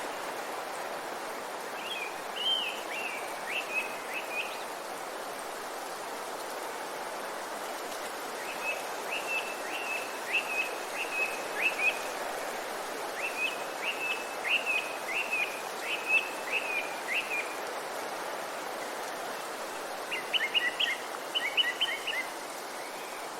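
A songbird singing short phrases of quick high notes, four times with pauses between, over a steady hiss of background noise.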